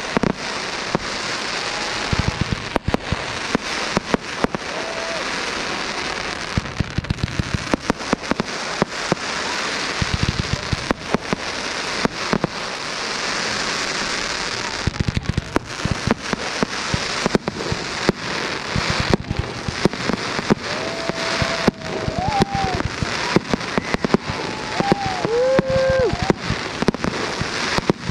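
Fireworks display: a dense crackle of gold glitter shells and ground fountains, like heavy rain, broken by many sharp pops and bangs of launches and bursts.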